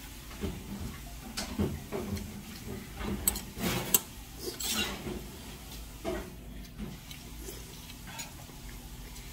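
Metal spoon clinking and scraping against stainless steel bowls while eating, in scattered strokes, with two sharp clinks a little before the middle.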